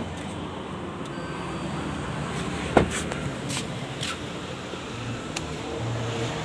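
Steady low rumble and hiss of outdoor background noise, broken by a few sharp clicks, the loudest about three seconds in.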